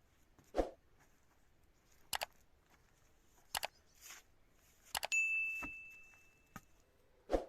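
Several short knocks and clicks from things being handled, and about five seconds in one metallic ding: a struck metal object rings with a clear tone that fades over about two seconds.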